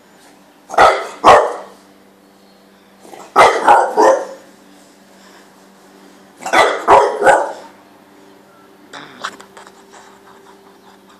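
French bulldog barking in play: two barks, then three, then three more, the groups a couple of seconds apart, followed by a few softer clicks.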